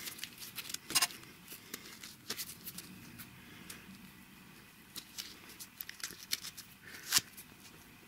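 Handling sounds of a watch strap being threaded through its keepers: light rustling with scattered small clicks, and two sharper clicks about a second in and near the end.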